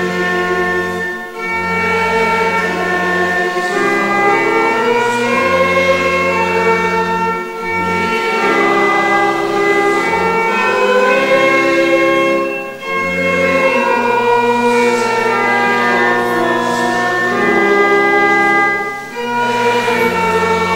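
Church congregation singing a Dutch hymn with organ accompaniment, in long held notes over stepped bass notes, with short breaths between phrases about every six seconds.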